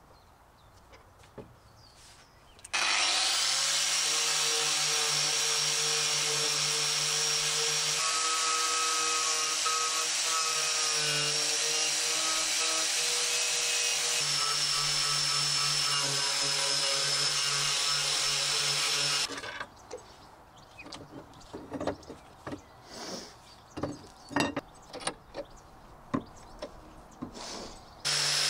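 Angle grinder with a wire brush running steadily, stripping rust from an old iron handle held in a bench vise; its pitch sags under load about halfway through and the motor cuts off suddenly. Then a series of metal knocks and clicks as the piece is handled in the vise, and the grinder starts up again at the very end.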